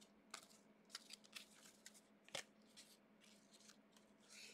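Faint ticks and slides of trading cards being flipped through one at a time by hand, with about half a dozen soft clicks, the sharpest about two and a half seconds in.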